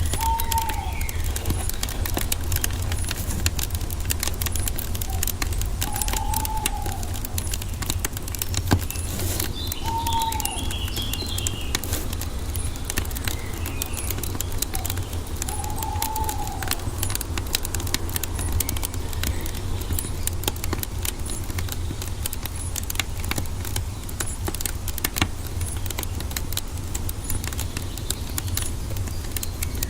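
Wood fire crackling with many sharp pops over a steady low rumble, while a bird gives four short, arched calls several seconds apart, with a brief higher twitter about ten seconds in.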